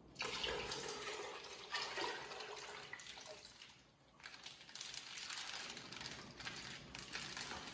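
Uncooked rice pouring from a plastic bag into a large pot of milk, the grains splashing into the liquid. It comes in two pours with a short break about four seconds in.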